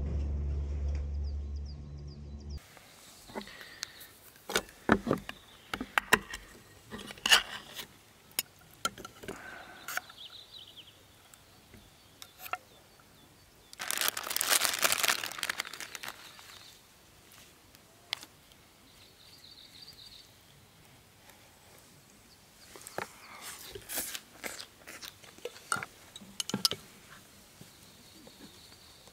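Background music cuts off about two seconds in. After it come close-up handling sounds: scattered clicks, crunches and crinkling of packaging and gear, with a hissing rustle of about two seconds midway through.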